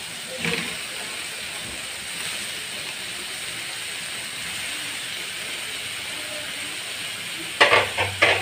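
Steady sizzle from a wok of sautéed onion, tomato and ginger as raw fish slices are laid in. A few sharp knocks near the end are the loudest sounds.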